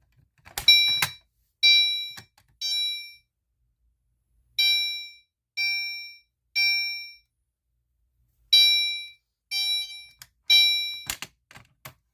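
Fire alarm horn sounding in the temporal-three evacuation pattern: three short blasts about a second apart, a pause, then the group again, three groups in all. It is set off by pulling the pull station. A few clicks come about a second before the end, and then the horn stops.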